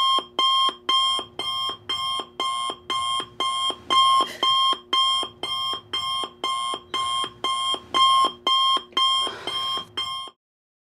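iPhone alarm going off: a repeating electronic beep about twice a second, each beep a bright chord of steady tones. It cuts off suddenly about ten seconds in.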